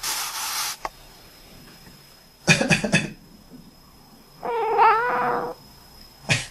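A sleeping cat making little noises in its sleep. First a short noisy breath, then a quick run of tiny squeaks about two and a half seconds in. Next comes a drawn-out, wavering mew lasting about a second, and another brief squeak near the end.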